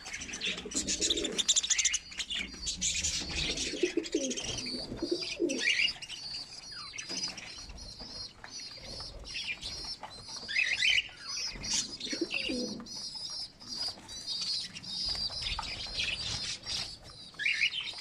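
Caged budgerigars and cockatiels chattering and calling: a steady high warble, louder calls now and then, and a few lower calls in between.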